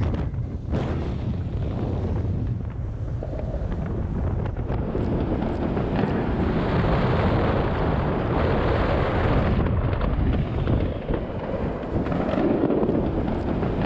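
Continuous din of many distant fireworks going off at once, a rumble of bangs and crackles, with wind buffeting the microphone.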